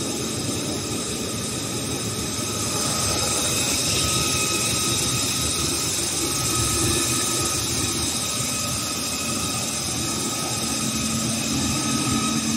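HS1300 film slitter rewinder running at its full line speed of 600 m/min, slitting and rewinding plastic film: a steady machine noise with a faint, steady high whine.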